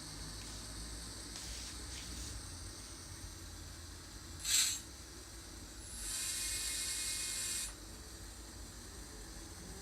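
Digitrax sound decoder in an N-scale Renfe 140 steam locomotive model playing steam sounds: a short hiss about halfway through, then a longer hiss of nearly two seconds with some ringing tones in it, over a low steady hum.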